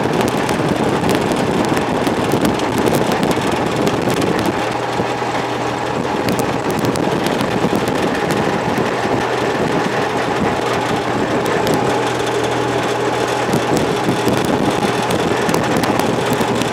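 Steady running noise of a moving road vehicle: a low engine hum under tyre and wind noise.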